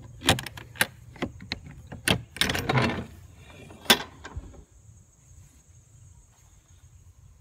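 Metal clicks and clanks of a horse trailer's door being unlatched and opened, with a rattling scrape about two and a half seconds in and a sharp clank near four seconds.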